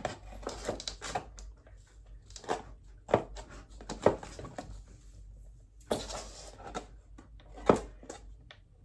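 Scattered light knocks and taps, about five clear ones spread over several seconds, from a small hand-made vending-machine box and its newly hinged door being handled.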